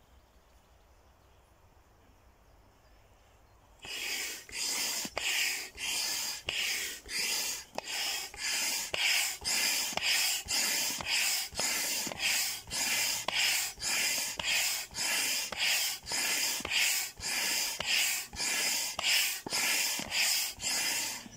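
Hand pump pushing air through a hose into a large vinyl inflatable duck, starting about four seconds in: a rhythmic hiss of pump strokes, about two a second.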